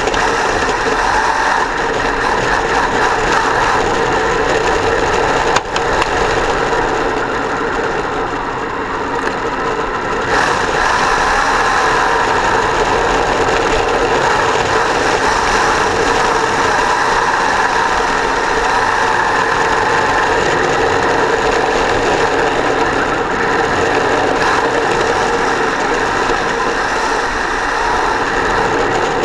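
Traxxas Velineon brushless electric motor and geartrain of an RC drift car whining as the car drives, pitch wavering in places, with tyre noise on asphalt, heard close from a camera mounted on the car. A single sharp knock about five and a half seconds in.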